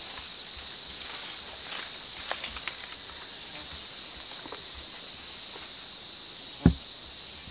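Steady high hiss of a rainforest insect chorus, with a few crackles of twigs and leaf litter about two seconds in and a single sharp thump near the end.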